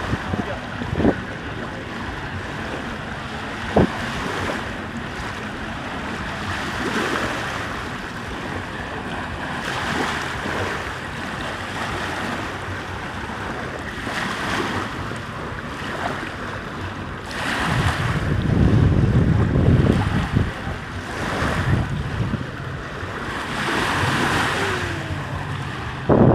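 Wind buffeting the microphone over washing lake waves, with a few brief knocks in the first few seconds and heavier gusts of rumble in the second half.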